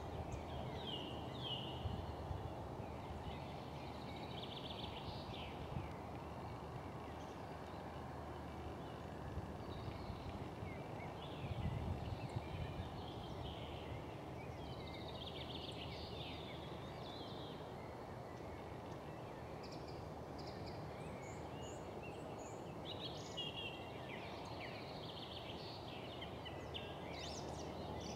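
Faint outdoor ambience: small birds calling and singing, short chirps and trills scattered throughout, over steady low background noise. A brief low rumble about twelve seconds in is the loudest moment.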